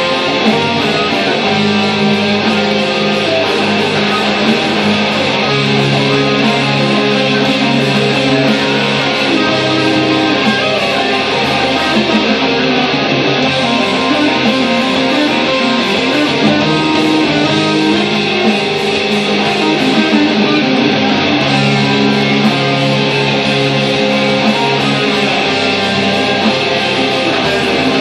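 Explorer-style electric guitar playing a lead line for a rock song. It plays quickly moving notes over continuous band music, with held low notes that change every few seconds.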